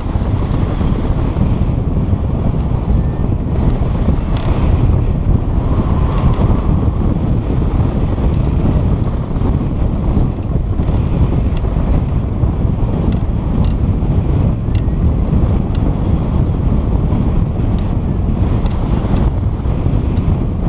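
Wind buffeting the microphone with a heavy, steady rumble, with a few faint light ticks now and then.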